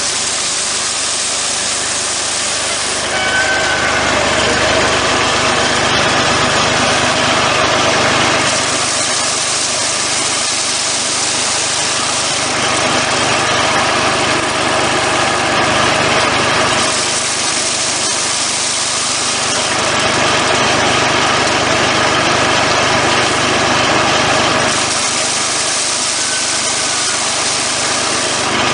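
Kubota engine running steadily, driving a hammer mill that threshes wheat. The mill's noise rises and falls every few seconds.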